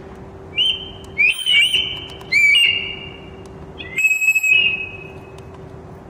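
A recorded bird call played by a BK1518B electronic bird caller through its loudspeaker: four bursts of high whistled notes, each swooping into a held tone, the last held for about a second and a half. A faint steady electrical hum runs underneath.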